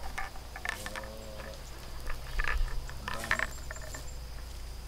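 Light clicks and rustles of PVC pipe fittings and an air release valve being handled and fitted together, over a steady high insect drone.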